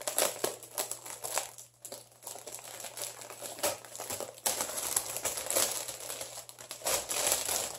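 A clear plastic bag crinkling and rustling unevenly as it is handled and pulled open by hand.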